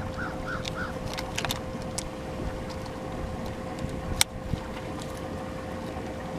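Wind and water around a bass boat with a steady hum. A few faint quick chirps near the start, then light clicks from a lip-grip fish scale being handled, the sharpest about four seconds in.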